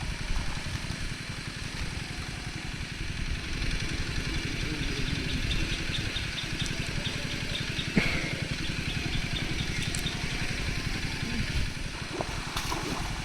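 Small engine running steadily with an even firing beat, with one sharp knock about eight seconds in.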